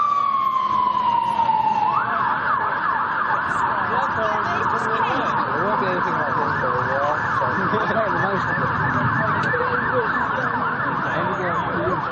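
Emergency vehicle siren: a long wail falling in pitch, which switches about two seconds in to a fast yelp sweeping up and down several times a second.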